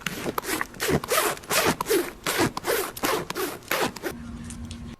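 Rapid rasping strokes, back and forth about four times a second, like scratching or sawing, stopping about four seconds in and giving way to a low steady hum.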